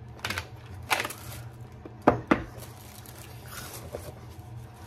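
Hands rummaging through an unboxing's packaging, with rustling and a few light knocks and clicks of items being picked up and set down. The two sharpest knocks come close together about two seconds in.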